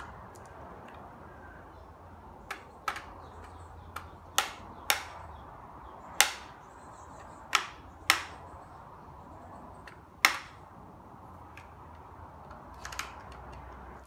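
Sharp clicks and knocks, about ten at irregular intervals, as a screwdriver works on a trim router's base to set the round-over bit shallower after it cut too deep, over a faint steady hum.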